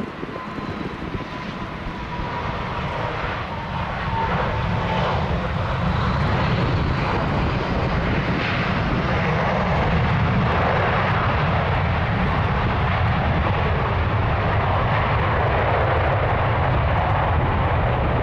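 Jet engines of an Airbus A320-214 airliner, its twin CFM56 turbofans: a thin whine drifting slightly in pitch in the first few seconds, then the engine noise swells and holds loud and steady.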